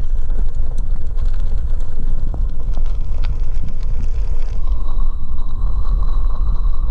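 Bicycle riding fast over a rough dirt and stone path: wind rushing over the microphone, tyre rumble and rattling knocks over the bumps. A steady whine joins about halfway through.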